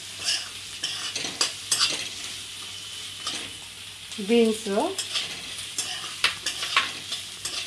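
Chopped onions sizzling in hot oil in a metal kadhai, with a steel spoon scraping and clinking against the pan as chopped green beans are tipped in and stirred. The clinks come irregularly over a steady sizzle.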